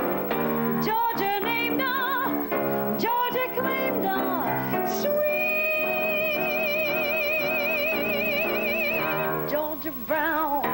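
Woman singing an up-tempo jazz standard into a microphone with piano accompaniment. About halfway in she holds one long note with a wide vibrato, which ends shortly before the close.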